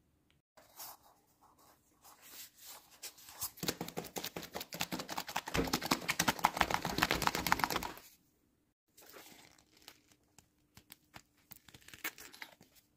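Dense, rapid scratching and rustling of handwork on model-making material. It builds about three and a half seconds in, is loudest just past the middle, and stops abruptly about eight seconds in, with fainter scattered scratches after.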